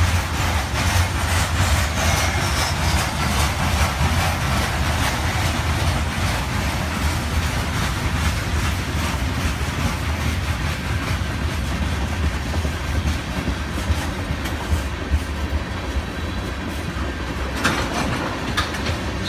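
Freight cars of a passing train (covered hoppers, then tank cars) rolling by close up. Their steel wheels make a steady heavy rumble on the rails with continual clicking over the joints, and a few louder clacks come near the end.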